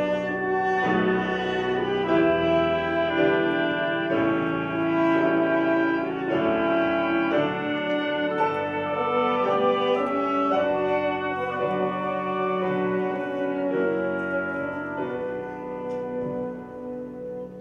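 Classical orchestral music with brass to the fore, playing a flowing melody of sustained notes; it grows quieter near the end.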